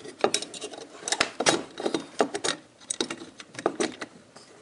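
Irregular small metallic clicks and rattles of a sheet-metal appliance junction box being handled as wires are fed through it.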